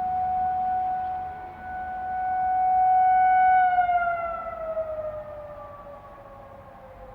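Outdoor tornado warning siren sounding its monthly test: a steady wail that swells and fades in loudness, then winds down, its pitch falling from about four seconds in.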